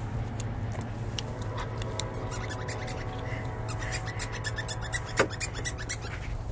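A pit bull-type dog licking and smacking its mouth close by, a rapid run of small wet clicks through the middle of the stretch, with a faint whine underneath.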